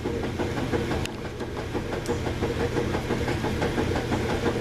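Steady hum of an electric motor running, most likely the dog grooming blower, with a couple of faint clicks about one and two seconds in.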